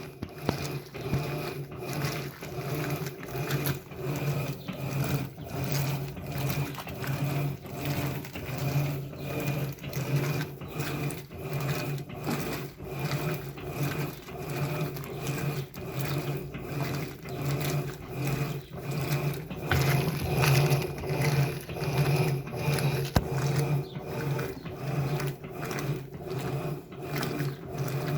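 Electrolux LBU15 15 kg top-loading washing machine agitating a load of rugs on turbo agitation: its motor hums and the agitator swishes back and forth in an even, quick pulsing rhythm.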